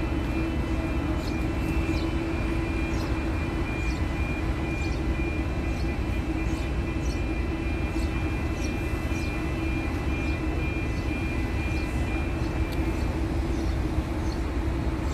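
Steady drone of heavy construction machinery at a launching girder: a low rumble with a held hum and a faint high whine that stops near the end. Short high chirps repeat under a second apart over it.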